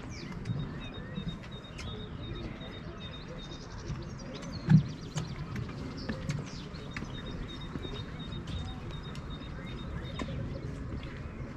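Footsteps on a wooden jetty, hollow knocks of shoes on the planks, with birds chirping and trilling. One louder thump about halfway through.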